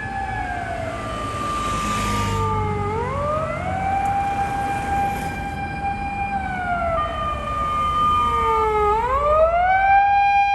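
Fire command car's mechanical motor siren wailing on an emergency run. Its pitch sags slowly, then winds quickly back up to a steady top note; this happens twice.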